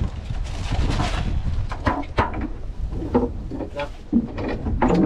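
Steady low rumble of a boat's engine with wind on the microphone, broken by several short knocks and splashes as a long-handled dip net is worked through the water of a live-bait well.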